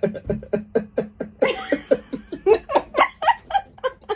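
A man and a woman laughing together in a quick run of short ha-ha pulses. A higher, brighter laugh joins in about one and a half seconds in.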